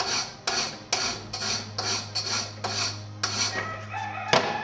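Hand file rasping across the head of a steel coach bolt clamped in a vice, in even strokes about two a second, cutting a flat so the bolt head fits a T-slot. A single sharp knock near the end.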